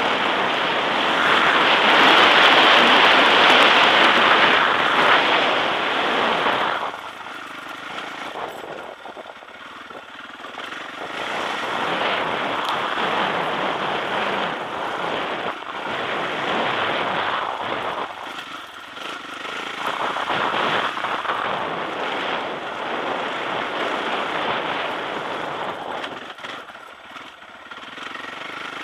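Sherco enduro motorcycle engine running under way on a dirt trail, revving up and down with the throttle. It is loudest for about the first seven seconds, then surges again several times.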